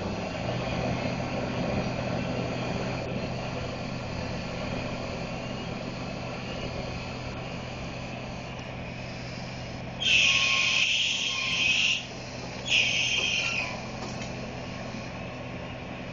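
Heavy diesel engine running steadily, broken by two loud hisses of released air, the first about two seconds long and the second shorter, a moment apart.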